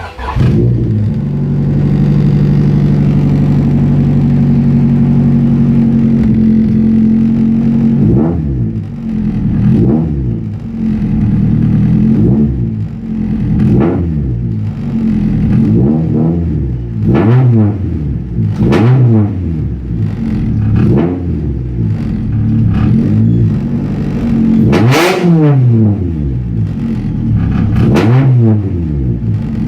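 Honda Civic four-cylinder engine started by push-button and catching almost at once, idling steadily for several seconds, then revved repeatedly in short blips from about eight seconds in, with one bigger rev near the end. The exhaust sounds bad.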